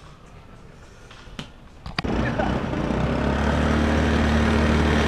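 Small motor scooter engine running steadily, cutting in suddenly about two seconds in after a few soft clicks and growing a little louder as it rides up.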